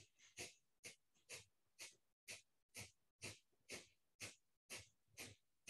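Kapalbhati breathing: faint, quick, forceful exhalations through one nostril, about two a second, each a short sharp puff of air with the belly pumping in, and no sound between them.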